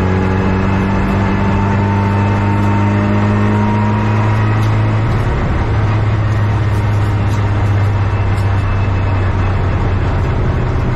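Renault Clio Cup race car's engine running hard under load, its pitch climbing slowly for about five seconds. About halfway through the rising note breaks off and the engine runs on at a steadier, rougher pitch.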